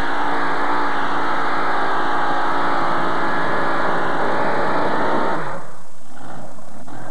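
Heavy modified pulling tractor's supercharged engines running flat out while it drags the weight-transfer sled down the track. About five and a half seconds in, the throttle comes off at the finish and the engines wind down quickly in pitch and loudness.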